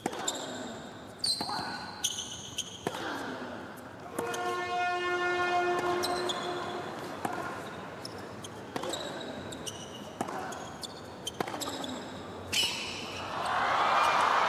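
Tennis rally on a hard court: a tennis ball is struck by racquets about once a second, with short high squeaks between the shots. About four seconds in, a loud steady horn-like tone sounds for roughly two and a half seconds over the rally. A noisy swell rises near the end.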